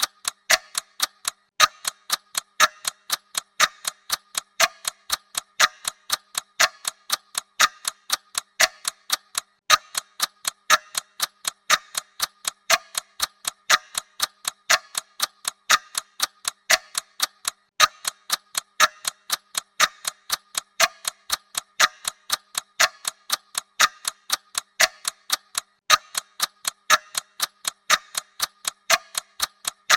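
Clock ticking sound effect: a mechanical clock's steady, evenly spaced ticks.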